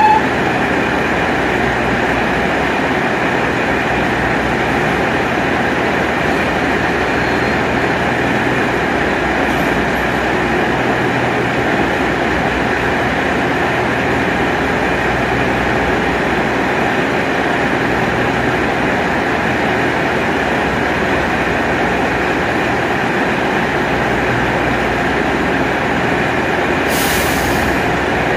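Diesel railcar idling while stopped, a steady running hum with a faint whine. A short hiss of air comes near the end.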